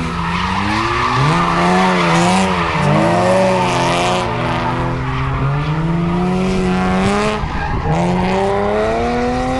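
Cars drifting on concrete: an engine revving up and down through the slides, then climbing in long rising revs, with tyres squealing hard throughout.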